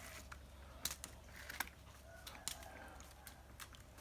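Scattered sharp clicks and knocks from handling an eel trap, with chickens clucking faintly in the background.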